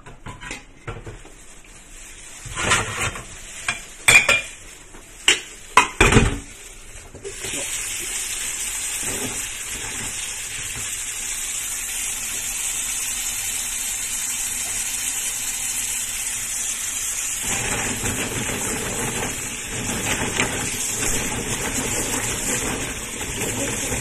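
A few sharp clanks of a stainless steel pot handled in a sink, then a kitchen faucet running steadily into the pot from about seven seconds in. The sound grows fuller, with splashing, about two-thirds through as the dried bird's nests are rubbed clean under the stream.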